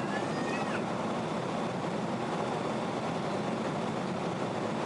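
Steady cabin noise inside a Boeing 777-200ER airliner: an even rush of engines and airflow. A faint, brief high squeak slides up and down right at the start.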